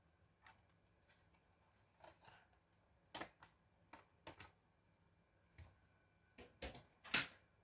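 Irregular small clicks and taps of hands working on a laptop's casing and parts, with a louder double click near the end.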